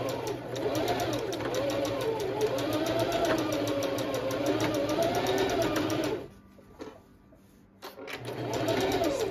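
Electric sewing machine zigzag-stitching through cotton clothesline rope in rapid needle strokes, its speed rising and falling. It stops about six seconds in and starts again near the end.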